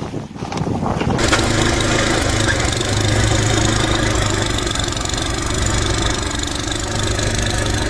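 Gusty wind on the microphone, then, about a second in, an engine idling steadily with a low, even hum.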